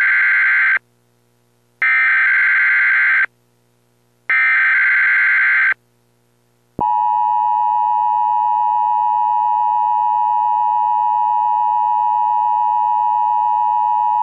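Emergency Alert System header: three digital data bursts of the SAME code, each about a second and a half, the first already underway, with short gaps between them. After about a second's pause the long, steady EAS attention tone begins about halfway through and holds.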